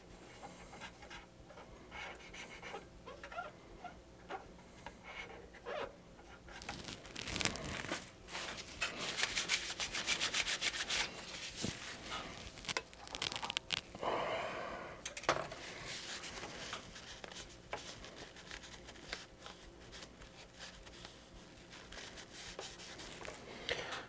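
Alcohol-soaked cotton swab rubbing back and forth over an aluminium heatsink, scrubbing off old hardened thermal paste. The strokes are fastest and loudest in the middle stretch.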